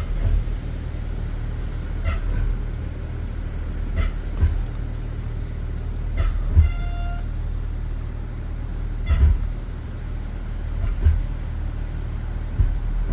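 Range Rover Sport brakes, genuine Land Rover pads and discs, squealing briefly as they are applied on the move: a short pitched squeal about six seconds in and brief high squeaks near the start and near the end. Under them runs the steady low hum of the vehicle, with a few knocks.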